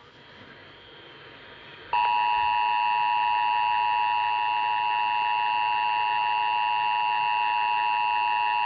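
Emergency Alert System two-tone attention signal (853 and 960 Hz together) starting abruptly about two seconds in and sounding as one steady tone for about seven seconds before cutting off. It is the warning tone that announces an emergency message is about to follow.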